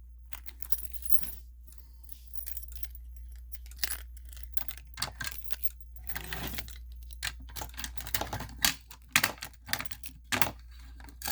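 Scattered metallic clicks and short rattles from the fire alarm pull station and its hardware being handled, coming in irregular clusters.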